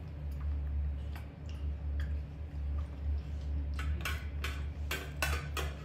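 Sharp clicks and taps of a plastic spoon against a stainless steel bowl as yogurt is scooped out: a few scattered at first, then a quicker run of clicks in the second half. A steady low hum runs underneath.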